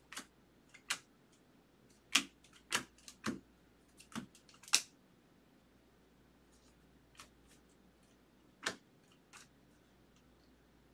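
A stack of baseball trading cards being thumbed through by hand, each card flicked off the stack with a sharp click. There is a quick run of clicks over the first five seconds, then two more near the end.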